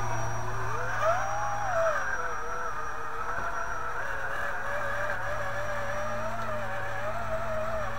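Electric motors and gear trains of radio-controlled rock crawlers whining as the trucks crawl over rocks, the pitch rising about a second in and then wavering up and down with the throttle. A steady low hum runs underneath.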